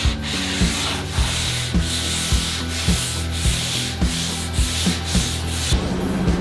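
Hand sanding with a long sanding block on a filler-patched fiberglass Corvette body: abrasive rubbing in repeated back-and-forth strokes, stopping about six seconds in. Background music with a steady beat plays under it.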